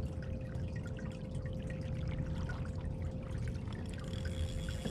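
Seawater sloshing and trickling against a kayak hull, over a steady low rumble of wind on the microphone, with a faint steady hum.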